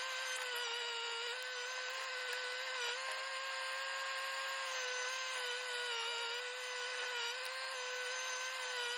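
Hydraulic post-hole auger on a Bobcat drilling into tough ground: a steady machine whine that sags briefly in pitch several times as the auger meets resistance.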